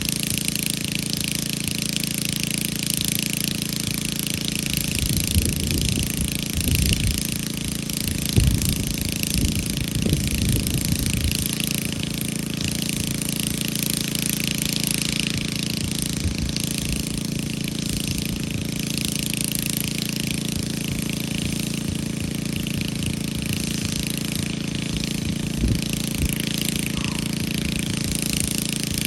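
Chainsaw running steadily under load while cutting, at an even level with no pauses.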